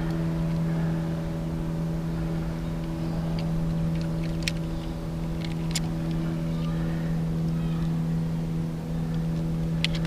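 A boat motor running at a steady speed, giving an even, unchanging hum, with a few faint clicks over it.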